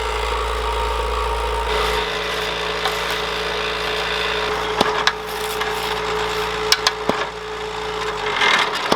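Concrete hollow block making machine running: a steady mechanical hum with a low drone under it, and a few sharp knocks about five and seven seconds in.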